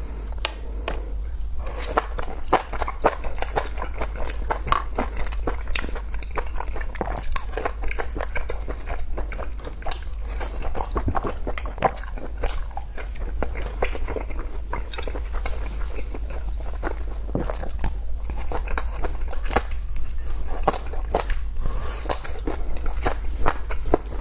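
Close-miked eating: a person biting and chewing food, a dense run of crunchy crackles and wet chewing clicks, over a steady low hum.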